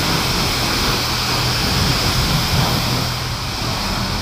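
High-pressure car-wash wand spraying water, a steady hiss with a low hum from the pump beneath.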